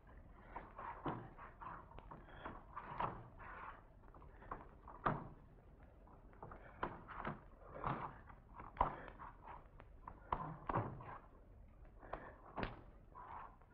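Bare feet stepping and thudding on a wooden stage floor: irregular knocks, roughly one or two a second, some sharper than others, over a faint steady background hum.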